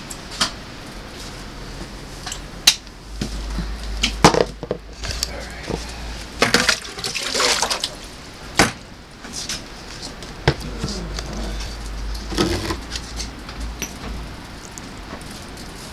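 Plastic scoop and plastic pots being handled while potting soil is scooped and poured: a string of sharp knocks and clatters, with a dense rustling pour about six and a half seconds in. Under it runs a low rumble of storm wind.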